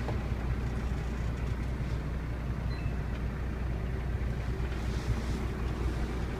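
Heavy diesel truck engine idling, a steady low rumble heard from inside the Kenworth T660's cab.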